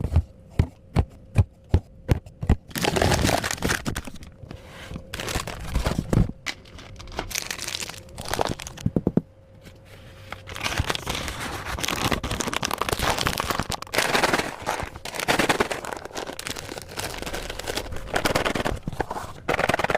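Hands handling crinkly packaging: a quick run of sharp clicks and taps in the first few seconds, then repeated bursts of crinkling and rustling.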